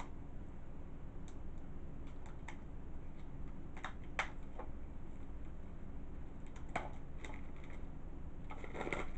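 Fingernails picking and scratching at the plastic shrink wrap on a Blu-ray/DVD case: scattered small clicks and ticks, with sharper clicks about four and seven seconds in and a brief crinkle of plastic near the end.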